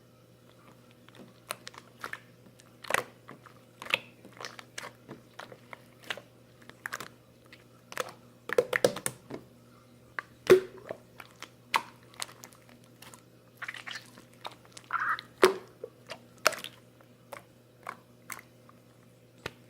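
Irregular crisp crunching and crackling clicks, one to two a second, the loudest about ten and a half seconds in, over a faint steady low hum.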